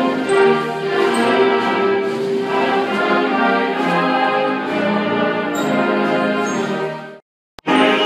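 Concert band of woodwinds and brass playing a piece together. About seven seconds in the sound cuts out abruptly for half a second, with a click, before the band is heard again.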